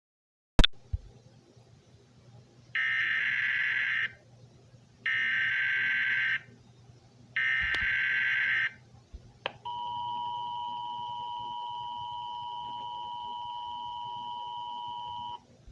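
A sharp click, then an Emergency Alert System header: three harsh bursts of SAME digital data tones, each a little over a second long. After a short pause comes the steady two-tone EAS attention signal, held for about six seconds and cut off just before the spoken alert.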